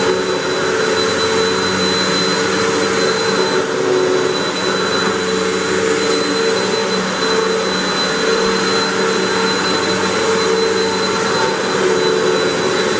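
Hoover WindTunnel 3 Pro Pet upright vacuum cleaner running steadily with its brush roll spinning, vacuuming carpet: a constant motor whine over rushing airflow.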